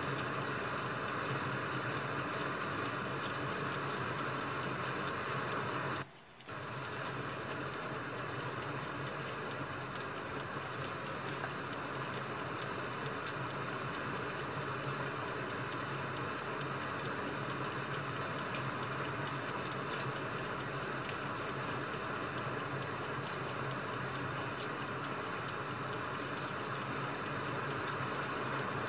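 Steady rushing rain from an ambient rain-sound track, with a few faint sharp pops. It cuts out for about half a second around six seconds in.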